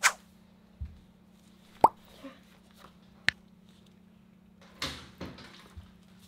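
A few short, sharp pops and clicks spread over several seconds, one about two seconds in with a quick rise in pitch, over a faint steady hum.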